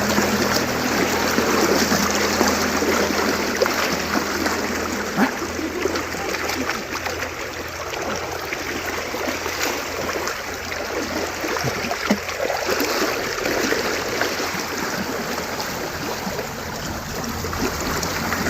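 Water of a small river running over its bed with scattered light splashes, typical of cattle wading through the shallows.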